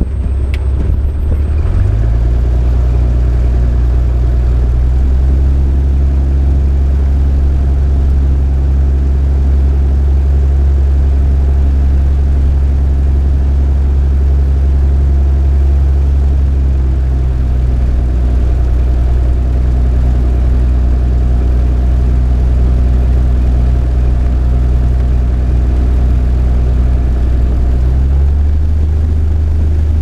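Stinson light aircraft's piston engine and propeller droning steadily, heard from inside the cabin, picking up about two seconds in and changing pitch near the end as the throttle is worked on the ground.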